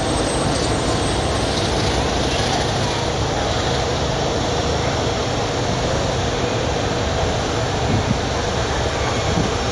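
Freight train passing with a steady, loud rolling rumble.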